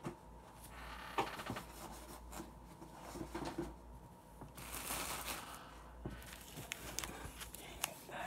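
Handling noise of trading card packs and their box: soft rustling and scattered light clicks as the packs are picked through.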